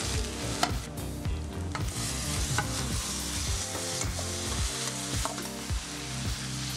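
Yogurt-marinated chicken pieces sizzling as they hit hot oil and fried onions in a frying pan, with a metal spoon scraping and clicking against the pan as they are stirred. Background music plays underneath.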